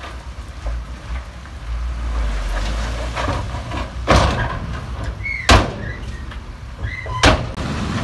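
Shantui DH17C2 bulldozer working: its engine runs with a low rumble while three sharp metallic bangs ring out about four, five and a half and seven seconds in, the middle one the loudest, each of the last two with a brief high squeal.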